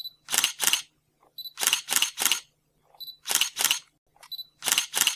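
Camera shutter sound effect repeating about every second and a half: a short high beep followed by two or three quick shutter clicks.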